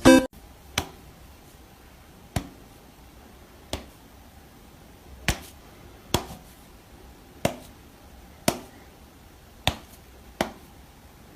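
Sharp single taps, about nine of them at uneven intervals, over faint room tone.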